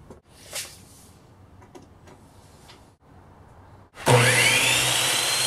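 Electric miter saw switched on about four seconds in, its motor whine rising in pitch as the blade spins up and then running steady as it cuts a wooden board. Before that only a few faint clicks.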